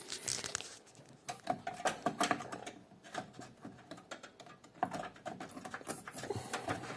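Scattered clicks, taps and light rattles of hands working inside a desktop PC case, fitting a Radeon R5 430 graphics card into its slot.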